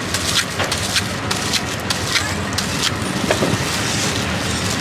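Busy street ambience: a steady bed of traffic noise with irregular sharp clicks and clatters throughout.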